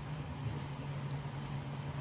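Steady low hum with faint scrunching of fingers working water into flour to knead dough.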